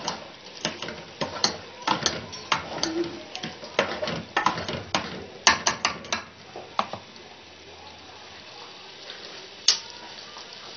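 Metal spoon stirring aloo keema in a large metal cooking pot, clinking and scraping against the pot in quick irregular knocks for about seven seconds, then quieter, with one more clink near the end.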